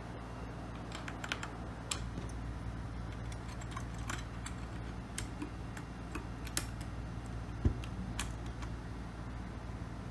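Sparse, irregular key clicks from a Keychron K2 mechanical keyboard with brown switches being pressed a key at a time, with one heavier thump about three quarters of the way through.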